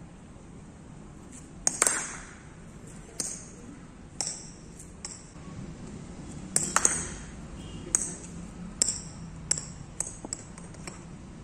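A cricket ball struck twice with the bat, each strike followed by a run of sharp ringing knocks coming quicker and quicker as the ball bounces away over the concrete.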